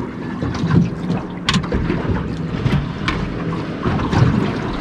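Wind buffeting the microphone and water slapping against the hull of a small fishing boat on open water, with a few short sharp knocks, the clearest about a second and a half in.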